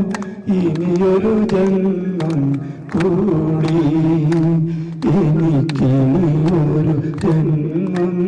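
A man singing into a microphone in a classical, Carnatic-style manner, holding long notes that slide and bend in pitch. Short sharp claps come in through the singing, roughly twice a second.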